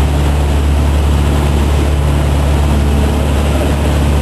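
A fishing boat's engine running steadily underway: a constant low drone with a broad rushing noise over it.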